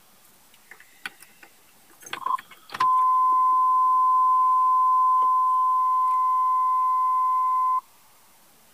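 A few light clicks and knocks, then a loud, steady electronic beep at one pitch, held for about five seconds, starting and stopping abruptly.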